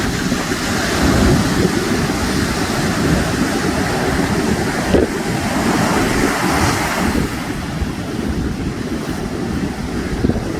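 Sea surf washing onto the shore, with wind buffeting the microphone in a gusty low rumble. The rush of the surf swells over the first several seconds and eases a little near the end.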